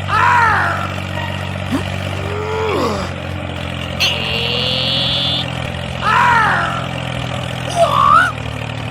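Vehicle engine running steadily with a low hum. Short rising-and-falling pitched calls come near the start and about six seconds in. A high steady tone is held for about a second and a half near the middle.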